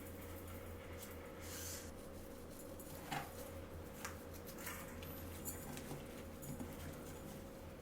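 Faint kitchen handling sounds: a few soft clicks and knocks, the clearest about three and four seconds in, over a steady low hum.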